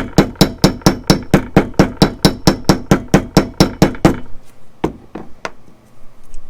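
Rapid, even hammer taps, about five a second, peening the end of a copper rivet back into a dome to remove a flat spot; the run stops about four seconds in, followed by three lighter, spaced taps.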